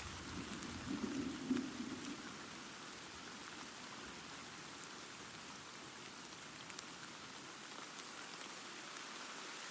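Steady rain falling, with a brief low rumble of thunder in the first two seconds.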